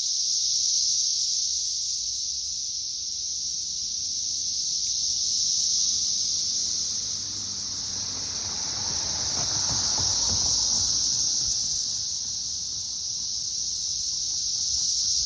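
Dense chorus of periodical cicadas swarming a tree: a steady high-pitched droning that swells and fades in slow waves every few seconds, with a brief low rumble about halfway through.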